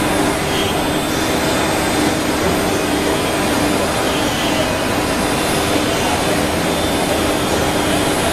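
4-axis CNC wood router running steadily, a continuous rushing machine noise with several steady tones through it.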